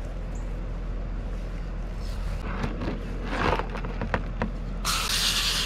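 Garden hose spray nozzle switched on about five seconds in, a sudden loud hiss of water spraying onto a cleaned blue crab on a plastic cooler lid. Before it there are only faint clicks and rustles as the hose is handled.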